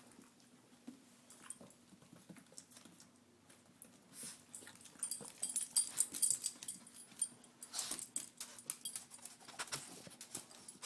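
A dog making small sounds and moving about: many short clicks and scratchy noises that grow louder and busier from about four seconds in.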